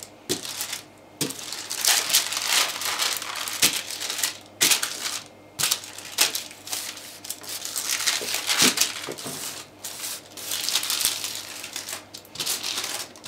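A sheet of baking parchment rustling and crinkling under hands rubbing softened butter over it, in irregular strokes with short pauses.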